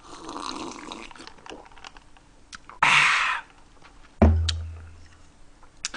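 A person drinking strawberry Fanta from a glass, with soft gulping sounds, then one loud breathy exhale about three seconds in. A sharp thud follows about four seconds in, with scattered small clicks.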